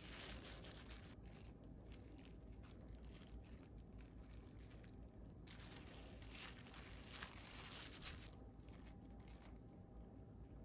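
Faint crinkling and rustling of disposable plastic food-prep gloves as hands handle food, in irregular stretches over a near-silent room.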